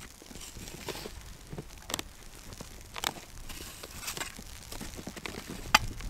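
Snow shovel cutting and scraping into snow, a short crunch about once a second, mixed with the crunch of boots shifting in snow.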